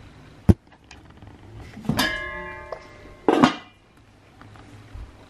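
Enamelled steel lid of a Weber Smokey Joe kettle grill being taken off and handled: a sharp click, then a metallic clang that rings on for about a second, and a second clatter of metal shortly after.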